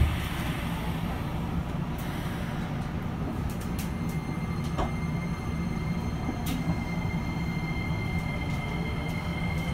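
Steady low hum inside a stopped subway car with its doors closed. A thump comes right at the start, and a thin, steady high whine sets in about two seconds in, just before the motors begin to pull away.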